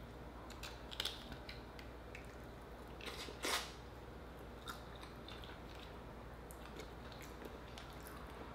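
Quiet eating sounds of cooked Dungeness crab being picked from its shell and chewed: scattered small clicks and crackles of shell, a sharp click about a second in, and a louder short burst about three and a half seconds in as the meat goes into the mouth.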